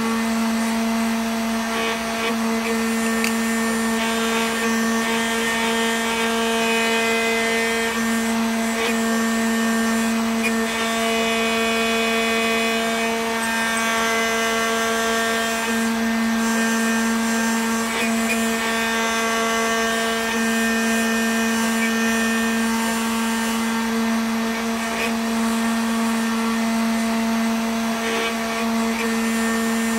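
Homemade CNC router's spindle running steadily as its small engraving bit carves a block of candle wax, a constant hum with higher tones that change every few seconds as the machine moves along its cut.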